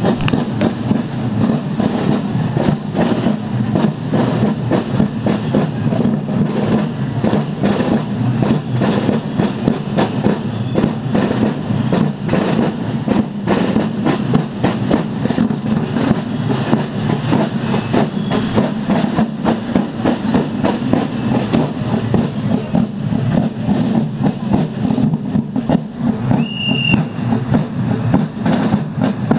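Marching drum corps playing field drums in a steady, fast, continuous beat as the drummers march past. A short high-pitched tone sounds once about three seconds before the end.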